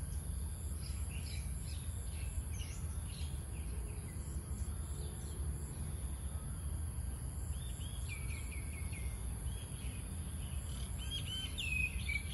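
Birds chirping: quick short chirps over the first few seconds, then runs of falling whistled calls about eight seconds in and again near the end, the last the loudest. A steady high-pitched insect buzz and a low rumble run underneath.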